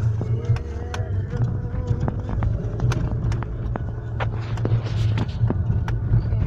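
Inside a moving car: steady low engine and road rumble, with frequent sharp rattles and knocks from the cabin.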